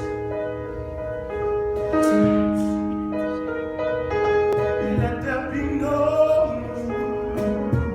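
Music: slow, held piano chords, joined by a wavering wordless vocal line about five seconds in.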